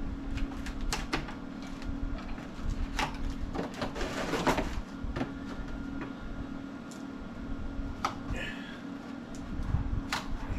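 Scattered clicks and knocks, with a scraping rustle about four seconds in, as galvanized steel anchor parts are handled and lifted out of a wooden shipping crate. A steady low hum runs underneath.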